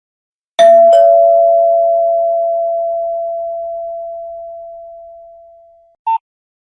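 A Nokia phone ringtone playing a two-note ding-dong chime: a higher note then a lower one struck about a third of a second apart, ringing on and slowly fading away over about five seconds. A short beep follows near the end.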